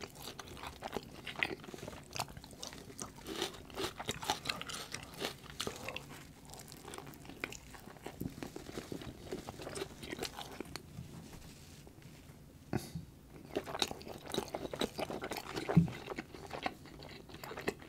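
Close-miked chewing of a bite of a slider sandwich: wet mouth sounds and many small clicks, quieter for a stretch about two-thirds of the way through, with a sharp smack near the end.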